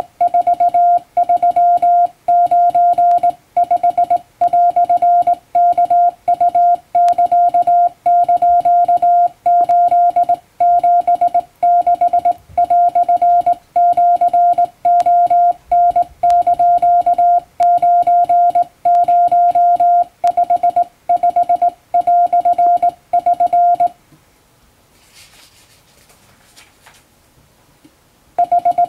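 Japanese wabun Morse code sent by hand on a straight key, heard as a steady mid-pitched beep keyed on and off in dots and dashes, with short gaps between characters. The sending stops for the last few seconds, leaving only a faint hiss.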